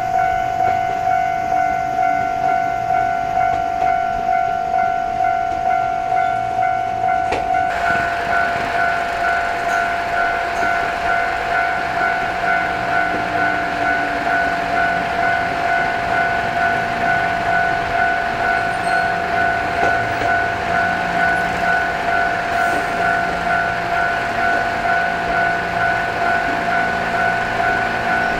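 Level-crossing warning bell ringing steadily, pulsing about one and a half times a second. Under it, a JR East 205 series 1100 electric train runs in, its rumble growing through the second half.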